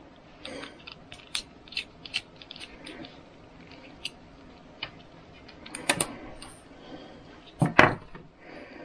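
Small clicks and taps from hands handling a screwdriver, plastic banana plugs and insulated wire. There are louder rustles about six seconds in and again shortly before the end.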